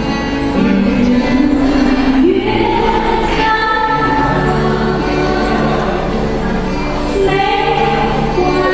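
Recorded song with a female singer's held, stepping vocal line over a steady instrumental backing, played for line dancing.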